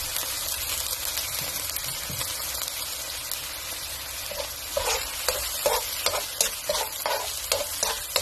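Soy-and-vinegar sauce with a splash of red wine sizzling around pork in a hot nonstick wok. About halfway in, a spoon starts stirring and scraping through it, about two or three strokes a second.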